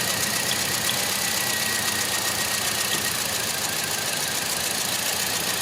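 2009 Toyota Matrix's four-cylinder engine idling steadily, with a faint steady high tone over it. The engine has logged a cylinder 1 misfire code (P0301).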